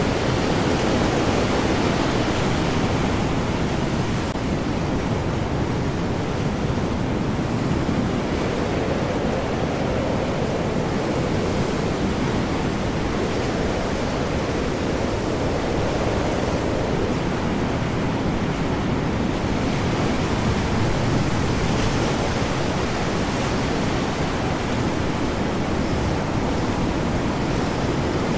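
Storm at sea: heavy, large waves and high wind together, a steady dense rushing noise that swells slightly now and then.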